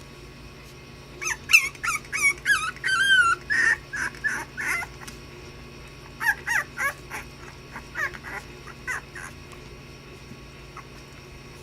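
Basenji puppies yipping and whining as they play: high, wavering calls in two bouts, the first starting about a second in and the second a little past the middle.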